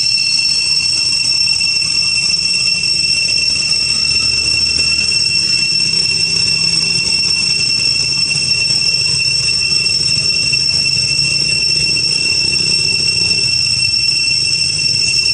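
Steady, high-pitched drone of insects, cicadas in the trees, holding two unbroken whines without a pause.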